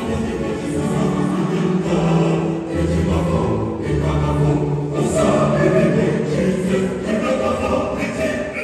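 Mixed choir of men and women singing a choral piece in parts, with long held chords that change every second or so.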